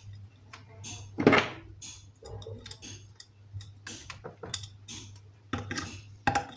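Irregular small metal clicks and clinks of ceiling-fan mounting hardware being handled as a cotter pin is fitted, with a louder clank about a second in and a few more sharp ones near the end.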